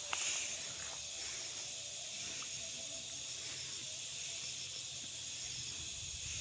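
Steady high-pitched insect chorus, an even hiss, with a brief knock just after the start.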